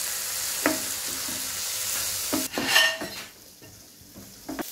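Onion and spice filling frying in oil in a pan with a steady sizzle while a spoon stirs it, knocking against the pan a few times; the loudest knock, a ringing clink about three seconds in, comes just before the sizzle drops away.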